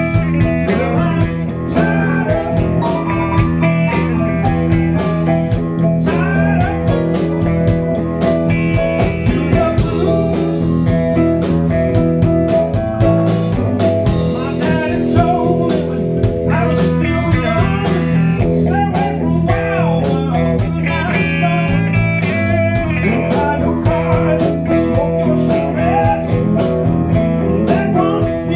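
Live blues-rock band playing, with guitar, keyboard and a steady drum beat.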